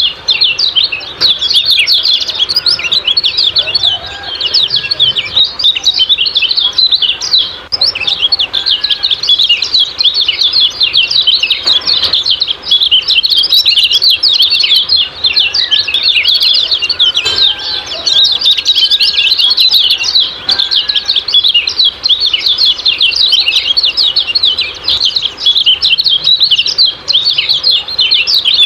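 Kecial kuning white-eyes chirping in a continuous, rapid stream of short, high 'ciak-ciak' notes.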